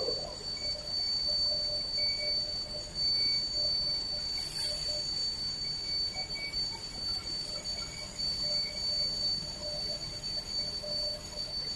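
Fibre cement board production machinery running with a steady, high-pitched whine over a constant low noise, with a brief clatter at the start.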